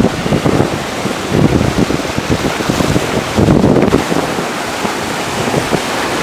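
Sea waves washing onto the shore, with wind buffeting the microphone in uneven low gusts, heaviest a little past the middle.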